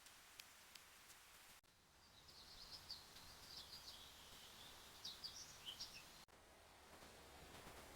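Faint, quiet ambience with a few sparse clicks, then small birds chirping in quick high runs for about four seconds, starting and stopping abruptly as if edited in, with faint hiss after.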